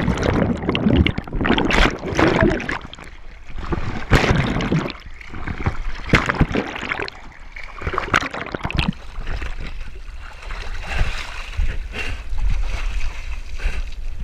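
Seawater splashing and sloshing around rocks right at the microphone, with irregular sharp splashes and surges that ease off in the last few seconds.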